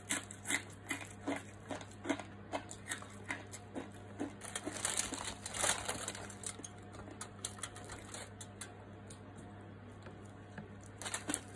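Aluminium foil crinkling and crisp roast pork skin crackling as meat is pulled by hand from a roasted pork leg. The crackles come in a quick, irregular run, busiest through the first half and sparser after that, over a low steady hum.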